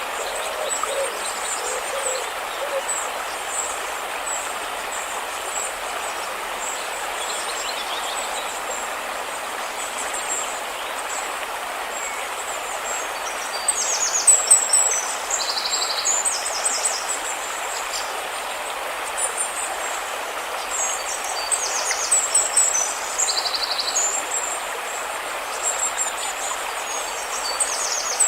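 Steady rushing of river water, with a few low owl hoots in the first seconds and high bird chirps and trills over it, more of them from about halfway through.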